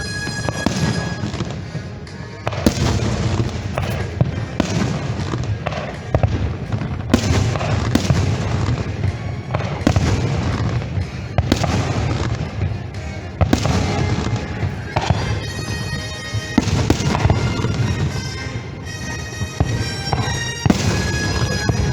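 Fireworks show: shells bursting in quick succession, a sharp bang every second or so, with show music playing underneath.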